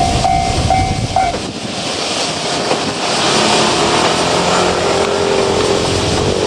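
A level-crossing warning bell dings about twice a second over the running noise of a JR Kyushu 817 series electric train passing the crossing. The bell stops a little over a second in. The train's noise carries on, with a hum that glides slightly down in pitch over the last few seconds.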